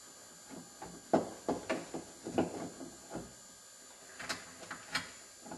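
Scattered light metallic clicks and knocks of a door lock actuator and its mounting bolts being handled and fitted inside a truck door, a cluster of them in the middle and two sharper ones near the end.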